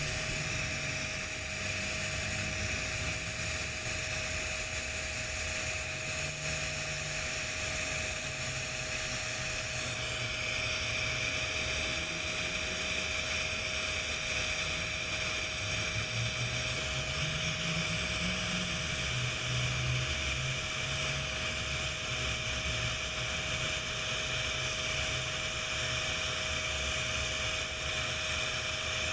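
TIG welding arc on 6-inch schedule 10 stainless steel pipe, burning continuously while filler rod is fed into the joint: a steady hiss with a constant tone running through it.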